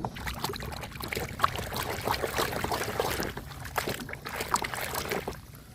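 Water splashing and sloshing in a tub as a muddy toy car is washed by hand, with many small clicks and knocks of the toy against hands and tub; it dies away shortly before the end.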